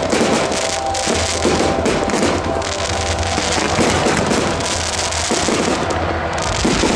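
Aerial fireworks bursting in a dense run of bangs and crackles, with music playing under them.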